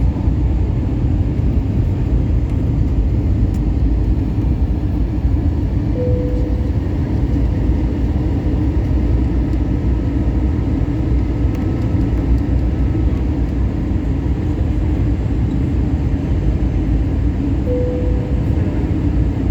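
Steady low rumble of engine and airflow noise from an Airbus A321 in flight, heard inside the cabin. A short mid-pitched tone sounds twice, about twelve seconds apart.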